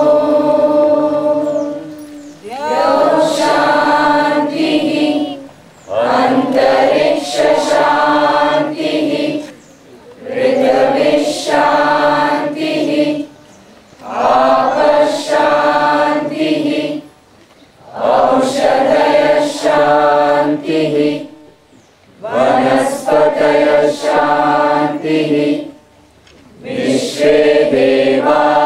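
A group of voices chanting together in unison, in short phrases of two to three seconds, each followed by a brief pause, about eight phrases in all.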